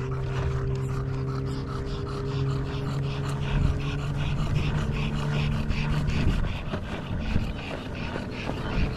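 Hard skateboard wheels rolling over coarse asphalt in a steady low rumble, with an English bulldog panting rhythmically over it.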